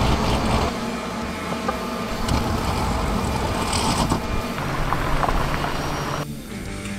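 Rollback flatbed tow truck's engine running while a car is loaded onto its tilting deck. A steady low rumble is loudest at first, a steady hum sets in later, and the sound changes abruptly near the end.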